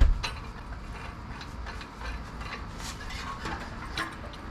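A thump at the start, then scattered clicks and light taps from parts of an old riding mower being handled while the engine is off.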